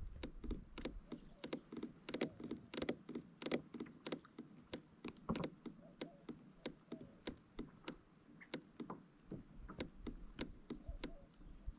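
Pedal drive of a fishing kayak squeaking and clicking with each pedal stroke, in an even rhythm of about two to three clicks a second.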